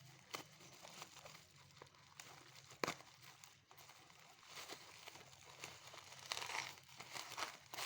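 Parcel packaging being handled and opened by hand: scattered crinkling and tearing, with a sharp snap about three seconds in and a longer rustle near the end.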